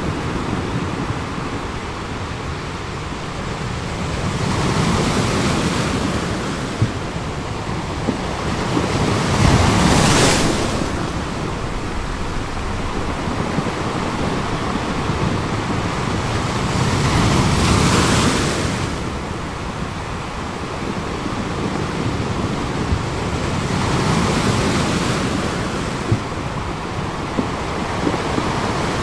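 Sea waves surging and breaking over a rocky shore, a continuous rush of surf that swells and ebbs every five to eight seconds, loudest about a third of the way in.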